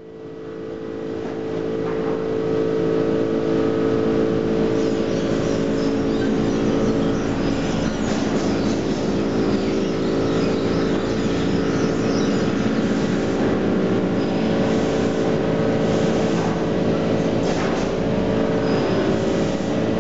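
Steady mechanical drone of sawmill machinery and a diesel forklift carrying a log, holding an even pitch throughout, fading in over the first two seconds, with some light clatter later on.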